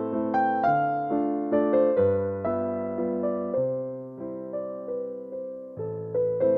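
Background music: a soft electric piano playing a slow melody with chords, each note struck and then fading.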